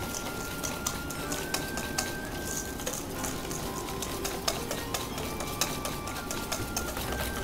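Wire balloon whisk beating a thick mixture of white miso, egg yolks, sugar and water in a stainless steel bowl: the wires tick and scrape against the metal in a quick, irregular rhythm. This is the mixing of the base for tamamiso, egg-yolk miso.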